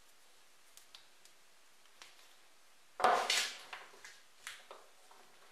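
A few faint ticks, then about three seconds in a loud knock as a homemade steel F-clamp is set down on a wooden workbench, followed by several lighter clatters of its steel parts.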